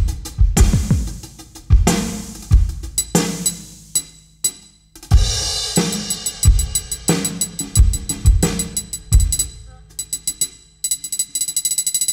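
Drum kit played in a groove with trigger-fired electronic samples layered over the acoustic drums: deep low kicks that drop in pitch, snare hits and cymbals. Near the end it breaks into a fast, even run of light strokes.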